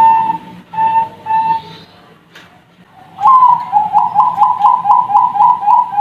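Young zebra dove (perkutut) of Thai 'Bangkok' stock cooing: a few short coos, a pause of about a second, then from about three seconds in a rapid run of short staccato coos, about four a second.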